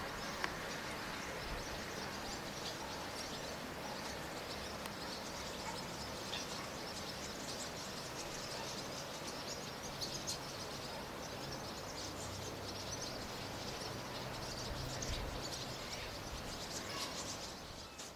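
A flock of starlings calling: a faint, continuous chatter of many short high chirps over low outdoor background rumble.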